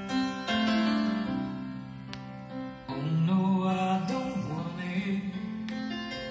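A song with guitar, played back over floor-standing hi-fi loudspeakers.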